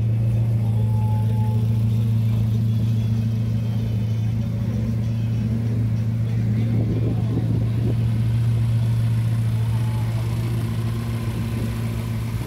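Steady low engine hum that does not change in pitch, with faint wavering whines in the middle.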